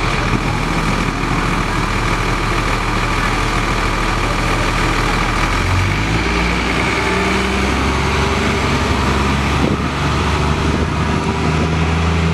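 Cummins ISC diesel engine of a 2001 Nova Bus LFS city bus idling, then revving up about six seconds in as the bus pulls away from the stop and accelerates.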